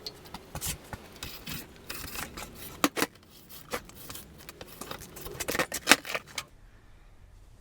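Beeswax roller and plastic beehive frame foundation being handled around a wax roaster: a run of irregular clicks, knocks and scrapes, stopping about a second before the end.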